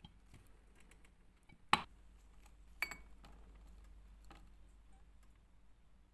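A plastic honey squeeze bottle clicking and knocking against a drinking glass while honey is squeezed in. There are a few sharp clicks: the loudest about two seconds in, another about a second later, and a faint one past four seconds.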